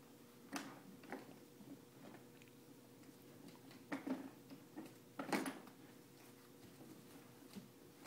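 Faint, scattered clicks and knocks of toys being handled, with a couple of louder knocks around four and five seconds in.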